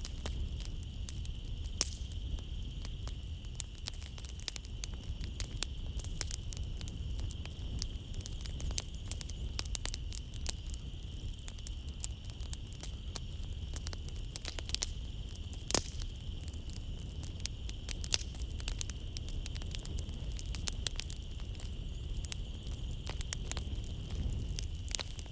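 Wood fire crackling in a fireplace: irregular sharp pops and snaps over a low steady rumble of flames, with one louder pop about sixteen seconds in. A steady high drone of night insects runs underneath.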